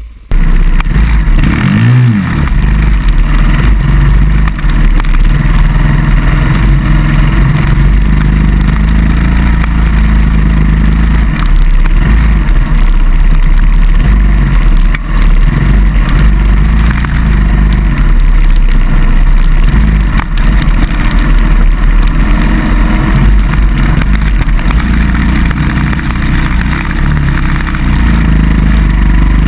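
Dirt bike engine running under way on a rough trail, heard loud and close from a camera mounted on the bike, over a steady rush of noise. The engine revs up and back down about two seconds in.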